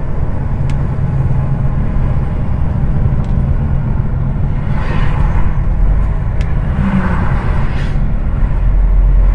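Heavy truck running steadily on the highway: a continuous low engine drone and road rumble, with two brief swells of rushing noise about five and eight seconds in.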